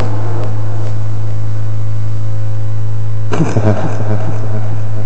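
Steady low electrical mains hum from the sound system, with faint evenly spaced overtones above it. A brief voice sound comes in about three seconds in.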